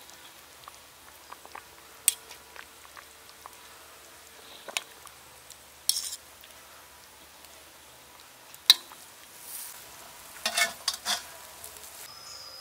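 Chicken legs simmering in sauce in a metal wok, bubbling and crackling softly, with scattered sharp clinks of a metal ladle against the pan. The loudest clink comes about two-thirds of the way through, and a quick run of clinks follows near the end.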